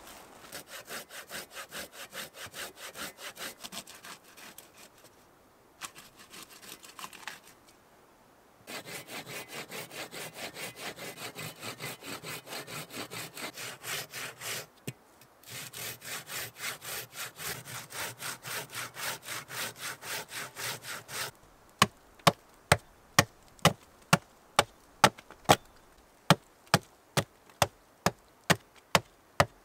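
Curved-blade pruning saw cutting wood in steady back-and-forth strokes, about two to three a second, with two short breaks. Near the end it gives way to sharp chopping blows on wood, about two a second.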